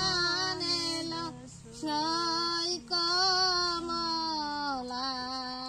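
A woman singing a song in long held, wavering notes, with short breaks between phrases about a second and a half in and near three seconds.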